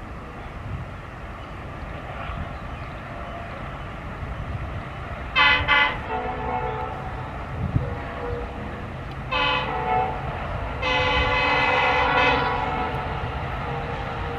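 Indian Railways diesel locomotive approaching with its engine running, sounding its multi-tone horn: two quick blasts about five and a half seconds in, then a short blast and a longer one of about a second and a half near the end.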